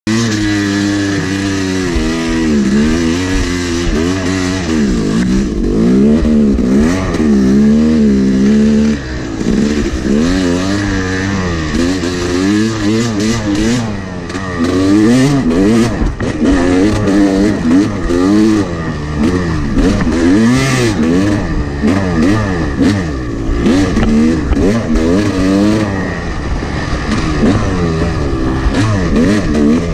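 Yamaha YZ250 two-stroke dirt bike engine, heard from on the bike, revving up and falling back over and over as the rider works the throttle and gears, with brief drops in revs about nine and fourteen seconds in.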